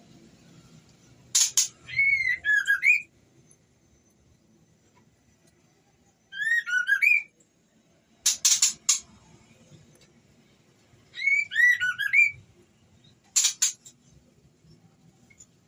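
Female white-rumped shama (murai batu) calling: short whistled phrases of a few slurred rising and falling notes, alternating with brief harsh chattering bursts, a group every few seconds. It is the call of a female in breeding condition calling a male.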